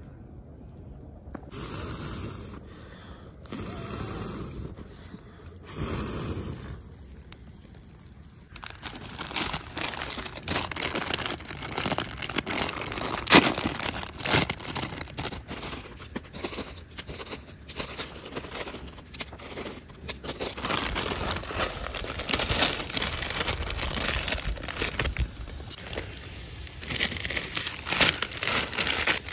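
Plastic instant-noodle packets being torn open and crinkled by hand, a dense crackling rustle that runs without a break through most of the stretch, after three brief separate noises in the first several seconds.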